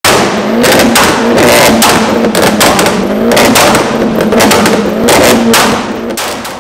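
Car engine revving hard through a loud modified exhaust, its pitch wavering up and down, with repeated sharp cracks.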